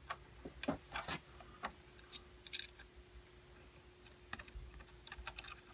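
Small metal clicks and taps of a bolt and nuts being fitted by hand into a home-made cross-feed stop on an Atlas lathe. They come in an irregular cluster during the first second or so and again from about four seconds in.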